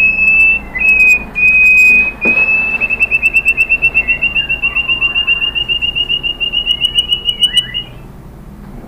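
White-rumped shama (murai batu) whistling: three long, clear notes each held at one pitch, then a fast, even trill of about seven notes a second that rises slightly and stops about eight seconds in.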